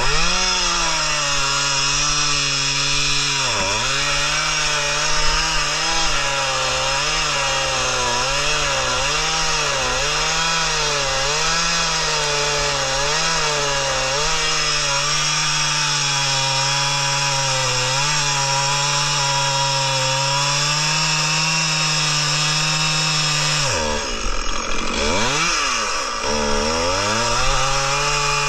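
Two-stroke Stihl chainsaw running at cutting speed, bucking an oak log. Its pitch wavers as the chain loads in the cut. The engine dips briefly about four seconds in, then falls toward idle and revs back up about 24 seconds in.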